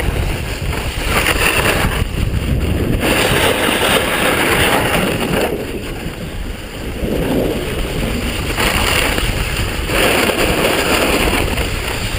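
Wind rushing over a pole-mounted action camera's microphone during a descent on a snowboard, mixed with the hiss and scrape of the board sliding over snow. The rush swells and eases every two or three seconds.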